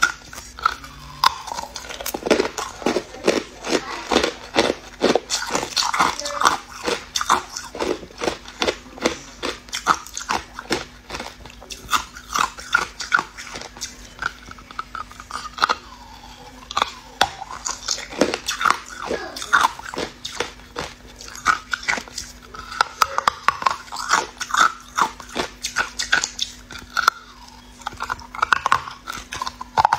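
Hard ice chunks being bitten and crunched between the teeth: a dense, irregular run of sharp cracks and crunches, many close together.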